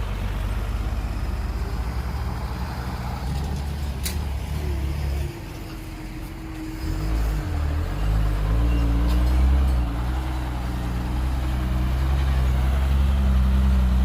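Heavy diesel engine running under load; it drops off about five seconds in, then picks up again with a wavering, changing pitch as it works harder. A sharp click about four seconds in.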